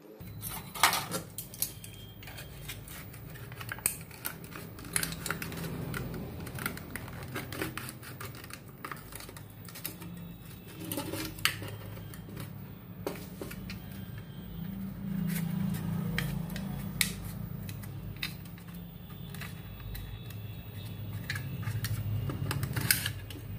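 Thin aluminium foil being crinkled, folded and pressed around a small plastic toy boat hull, with frequent irregular sharp clicks and crackles from the handling, over a steady low hum.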